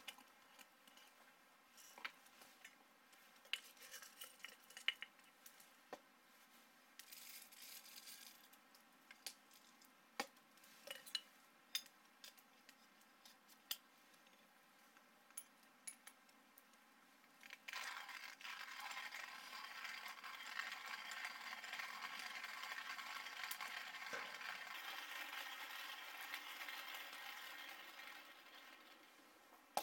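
Scattered clicks and light knocks as coffee beans are handled and loaded into a stainless-steel hand coffee grinder. About two-thirds of the way in, the grinder's crank is turned: a steady grinding of the beans for about ten seconds that tapers off near the end.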